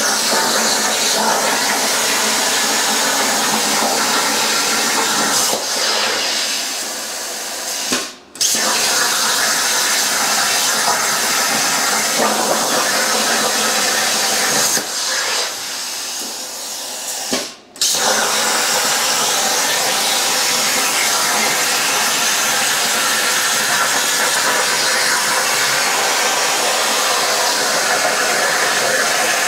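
Plasma cutter torch on a Langmuir Systems Crossfire Pro CNC table cutting 14-gauge steel sheet at raised air pressure: a loud, steady hiss of the arc and its air. It goes quieter and then cuts out briefly twice, about 8 and 17½ seconds in, each time starting again at full level.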